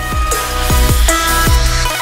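Background music with a fast beat of deep drum hits that drop in pitch.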